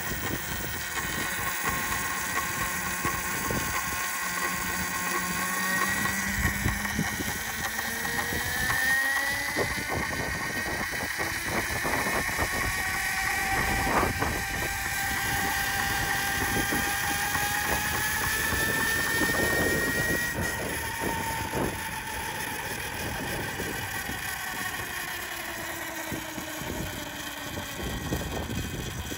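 The chain drive and LR small block motor of a 72-volt electric bike whine, rising in pitch as the bike speeds up about six seconds in, holding, then falling as it slows after about twenty seconds, over road and wind noise. Under throttle there is a steady rubbing noise from the chain, which the rider thinks is almost like the front sprocket catching on the chain.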